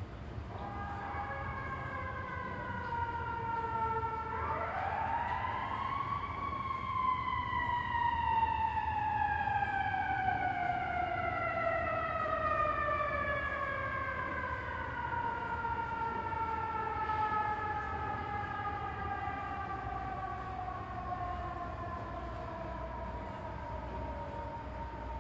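Siren sounding across the city: a falling tone at first, then a rise about four seconds in that peaks a couple of seconds later and slides slowly down in pitch for the rest of the time, over a steady low rumble of city traffic.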